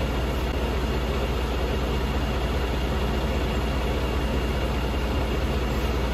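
Vacuum truck's engine running at a steady speed, a constant low drone.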